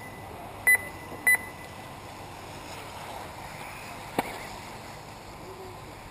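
Two short electronic beeps half a second apart, about a second in, from the race's lap-timing system as cars cross the timing line, over a steady outdoor noise bed; a single sharp click near the four-second mark.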